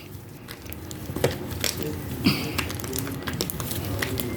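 Fluffy homemade slime being squished and worked in the hands, making a run of small, irregular sticky clicks and pops.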